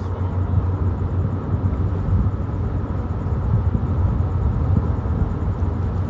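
Deep, steady rumble of the Lobo Marinho passenger ferry's engines as the ship comes slowly in to berth.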